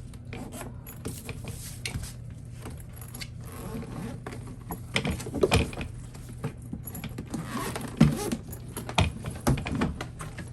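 A hardside PC/ABS suitcase being handled and unzipped: the zipper rasping in short runs while the metal zipper pulls clink, with scattered knocks on the shell and one sharp knock about eight seconds in.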